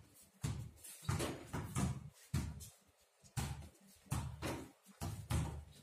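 Basketballs bouncing on a paved court as they are dribbled: a string of irregular thuds, about one to two a second.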